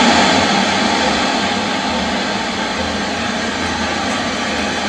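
Sony Trinitron television's speaker hissing with loud, steady static: the freshly switched-on set has no signal tuned in. The hiss eases down a little over the first second or so.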